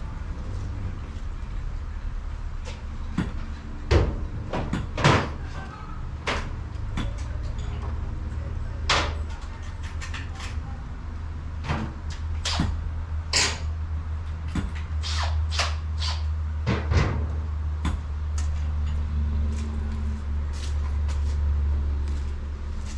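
Irregular metallic clicks and clanks of mailbox compartment doors and lock parts being opened, shut and handled, the loudest a pair of knocks about four and five seconds in, over a steady low rumble.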